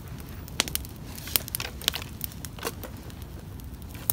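A pile of dry pine needles and small twigs burning hard and crackling, with irregular sharp pops a few times a second.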